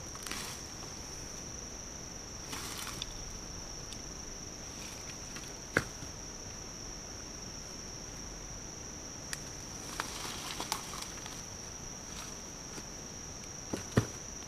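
Steady high-pitched insect drone, with brush rustling and a few sharp knocks as wood and debris are handled with a mattock; the loudest knocks come about six seconds in and near the end.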